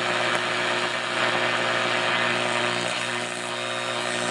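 Steady hiss and buzz of static from a Hallicrafters SX-28A shortwave receiver's speaker, with a low hum underneath, as its front-panel knob is turned off a station. Switching off the room light did not reduce this noise.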